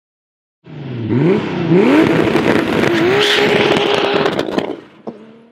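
Intro sound effect of an engine revving up twice, then holding a steady high note with crackles, before fading out near the end.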